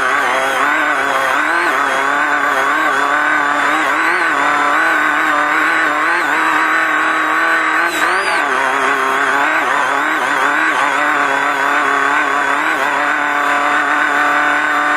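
Off-road race car engine heard from on board, running hard with the revs rising and falling continually, and a brief dip and pick-up about eight seconds in.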